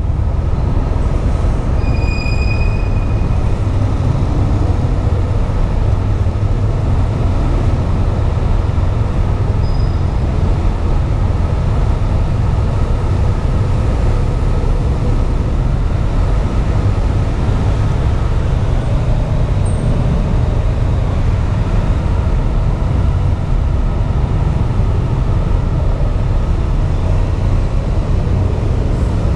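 Motorcycle engines running at low speed inside a ferry's enclosed steel vehicle deck: a loud, steady low rumble.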